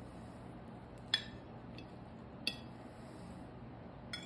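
Metal fork clinking against a dinner plate three times, short sharp clinks with a brief ring, while cutting into an omelette; the first, about a second in, is the loudest.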